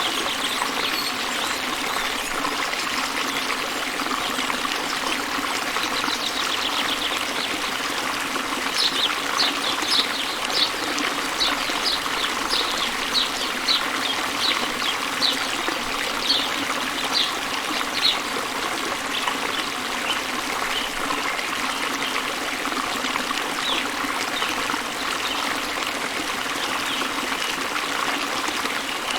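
Steady rush of a waterfall. Over it a bird gives a run of short high chirps, about two a second, for some ten seconds in the middle, then a few scattered chirps.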